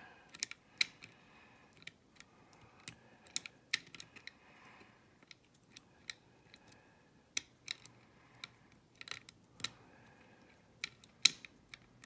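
Lock-picking tools clicking and scraping against the levers inside a Chubb five-lever mortice lock: irregular sharp metallic clicks, a few louder than the rest, with faint scraping between them.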